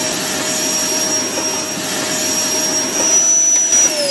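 Vacuum cleaner running with a steady high whine over a rushing hiss, then switched off near the end, the motor's whine falling in pitch as it winds down.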